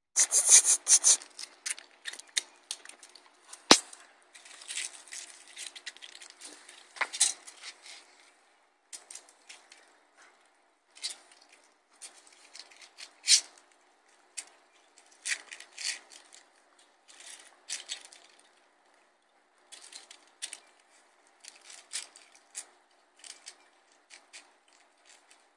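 Vizsla puppy playing with a pinecone on a concrete deck: irregular scrapes, crunches and clicks as the cone is mouthed and batted about, with a sharp knock about four seconds in.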